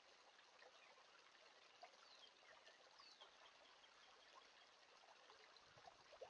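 Near silence: the faint trickle of a shallow creek running over stones, with two faint high notes falling in pitch about a second apart.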